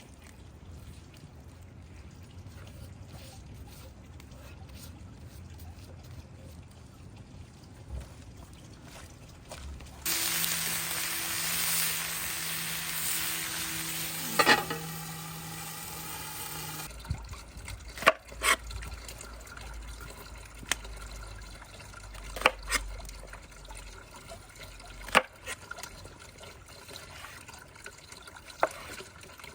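Liquid pouring for about seven seconds, starting about a third of the way in and stopping abruptly, with a rising note near its end as the vessel fills. Afterwards there are several sharp knocks.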